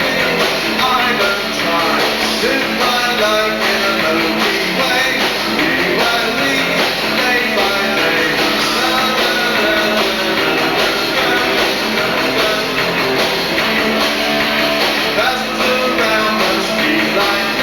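Rock band playing a song live, with electric guitar to the fore over a steady, loud full-band backing.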